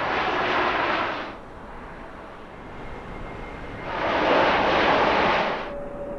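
Jet airliner engines: two loud surges of rushing roar about four seconds apart, with a quieter stretch between them in which a faint steady engine whine remains.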